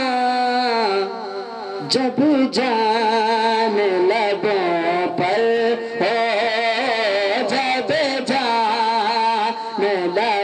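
A man's solo devotional chant sung into a microphone, with no instruments. The voice moves through long held notes with wavering, ornamented turns, and pauses briefly for breath just after a second in.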